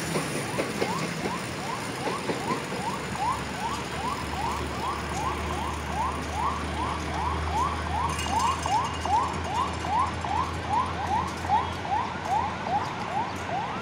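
An electronic alarm chirping: a short rising whoop repeated about three times a second, over a low steady rumble.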